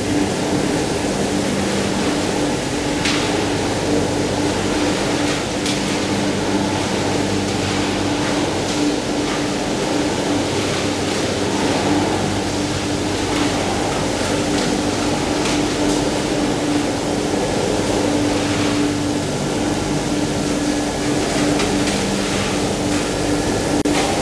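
Machinery of a PP woven bag recycling line running steadily: a loud, constant hum with a few held tones and scattered light clicks.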